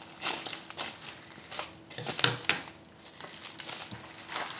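Plastic mailer bag and its foil insulation liner crinkling and rustling as they are handled and pulled apart, with one sharp click about halfway through.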